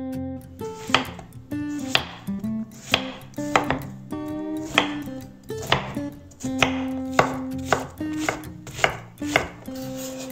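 Broad-bladed kitchen knife chopping zucchini on a wooden cutting board: sharp knocks of the blade hitting the board, starting about a second in and repeating one to two times a second, over soft acoustic guitar music.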